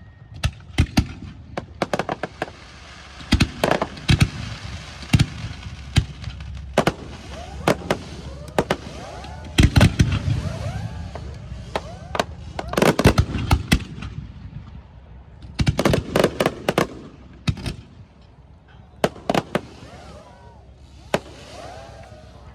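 Daytime fireworks display firing: rapid sharp reports in dense clusters, heaviest about ten, thirteen and sixteen seconds in. Short whistling tones rise and fall between the bursts.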